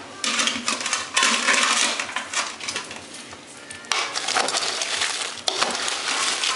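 Cooked crayfish being stirred with a metal ladle in a metal pot: hard shells clattering and rattling against each other and against the pot, with metal scraping and clinking. It comes in several bursts of stirring, with a quieter spell around the middle.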